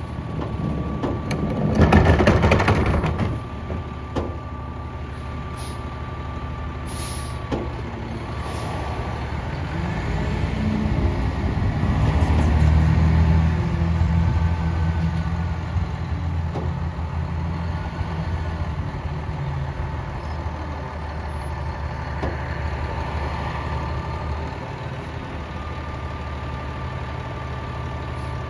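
Heil PowerTrak rear-loader garbage truck running with a steady hydraulic whine over the diesel engine as the packer works the load; the engine speeds up about ten seconds in and holds for several seconds before settling. A loud burst of noise comes about two seconds in.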